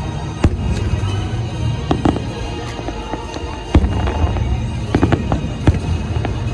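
Fireworks going off: a rapid, uneven series of sharp bangs and crackles over a dense low rumble, with music playing underneath.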